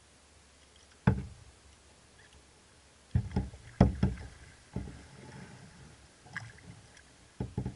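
Werner kayak paddle strokes on a Necky Chatham 18 sea kayak: irregular splashes and hollow knocks as the blades dip into the water. One comes about a second in, a quick cluster at three to four seconds, and a couple more near the end.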